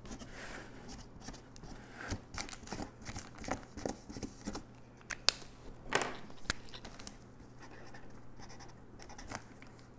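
Felt-tip markers drawing short strokes on a cardboard box: light scratching, with scattered small clicks and taps, the sharpest a little after five and six seconds in.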